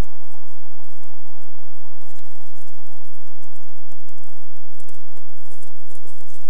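Footsteps crunching in snow at a walking pace, over a constant hiss.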